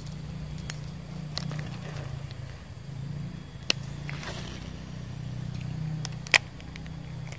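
Handling noise at the riverside: a low steady rumble with scattered light clicks, and two sharper clicks about three and a half and six seconds in.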